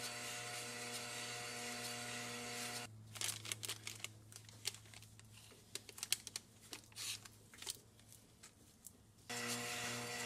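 Lathe running steadily, spinning an aluminium barrel lap inside a cast iron bore, a steady hum with several fixed pitches. About three seconds in the hum cuts off and there is scattered rustling, crinkling and small clicks of hands handling the part and masking tape; near the end the lathe hum suddenly returns.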